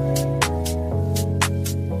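Background music: held synth chords over a steady beat with crisp percussion ticks.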